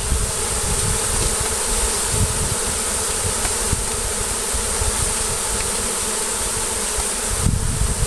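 Many honeybees flying and buzzing together in a steady, dense hum, stirred up and driven out of their nesting space by a spray of Bee-Quick repellent.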